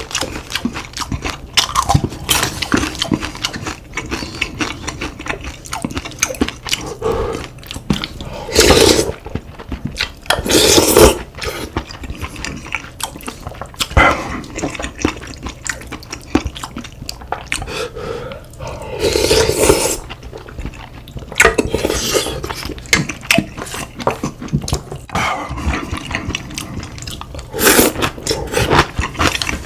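Close-miked eating of spicy beef soup with rice and kimchi: steady chewing and small clicks of spoon and chopsticks against bowls, with several loud slurps about a second long.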